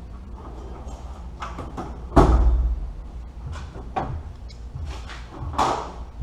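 Knocks and clanks of hand tools and parts handled during engine work, irregular, with a loud clank about two seconds in that rings briefly and another near the end.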